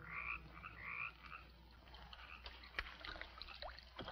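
Frogs croaking, a quick run of several croaks in the first second and a half, then fainter scattered clicks.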